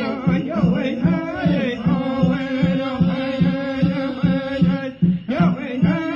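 Music: a voice singing in a chant-like style over a steady drum beat of about two and a half beats a second, with a brief drop in level about five seconds in.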